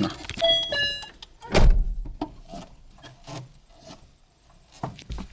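Inside a parked car with the engine off: a short electronic warning chime beeps near the start, then a heavy thump about a second and a half in, followed by scattered clicks and knocks from the controls and a low thump near the end. No clutch squeak is heard.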